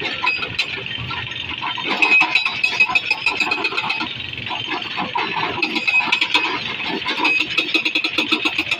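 Newly fitted Atlas hydraulic breaker on a Komatsu 210 excavator hammering on rock, a rapid metallic rattle of blows over the excavator's running engine.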